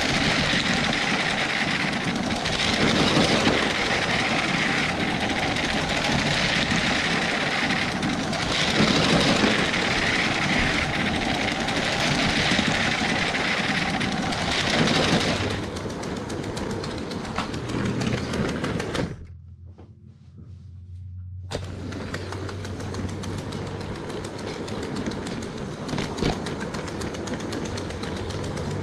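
A Lego train running on its track: a steady whir of the locomotive's electric motor with wheel clatter, swelling and fading every few seconds. About halfway through it falls quieter, cuts out briefly, then goes on softer over a low hum.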